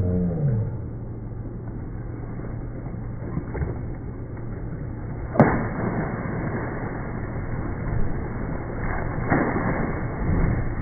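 A plastic snow sled smacks down on shallow pool water about five seconds in as a child jumps onto it, followed by rushing water as it skims. Bigger splashes come near the end as he falls into the water. A steady low hum runs underneath, and there is a brief falling tone at the start.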